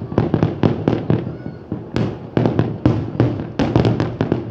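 Fireworks display: aerial shells bursting in a rapid, continuous string of bangs, several a second, thinning briefly about a second in and coming thick and fast again later.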